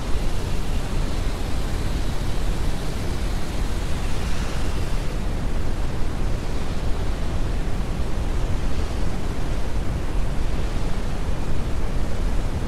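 Steady, loud wash of rushing noise, heaviest in the low end, with no tones or beat; it brightens slightly about four seconds in.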